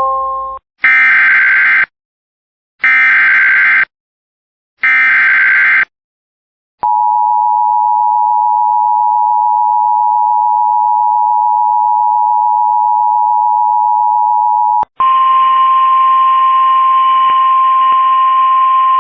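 Emergency Alert System activation. Three loud one-second bursts of screeching SAME header data, a second apart, are followed about seven seconds in by the EAS two-tone attention signal, held steady for about eight seconds. About fifteen seconds in, it switches to a single steady NOAA Weather Radio warning alarm tone with radio hiss behind it, announcing a severe thunderstorm warning.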